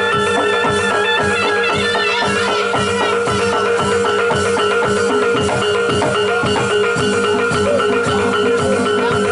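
Live Javanese jaranan ensemble music: drums beating a dense, steady rhythm under long held ringing tones.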